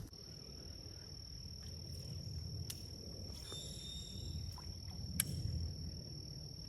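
Steady high-pitched insect trill, crickets or similar, with a low rumbling noise underneath and a couple of sharp clicks, one near the middle and one a little past it.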